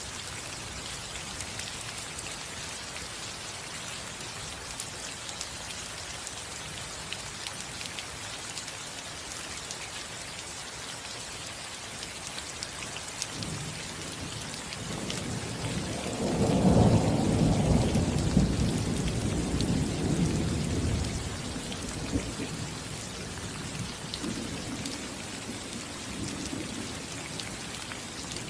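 Steady rain falling on a roof, with scattered individual drops ticking. About halfway through, a roll of thunder builds, rumbles loudest for a couple of seconds, then fades away.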